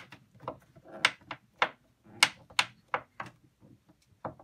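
A slotted screw being driven by hand with a flathead screwdriver into a wooden shelf support: about a dozen sharp clicks at uneven intervals as the blade turns in the screw slot.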